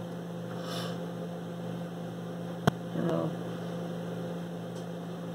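Steady electrical mains hum from bench test equipment, with a single sharp click a little over two and a half seconds in.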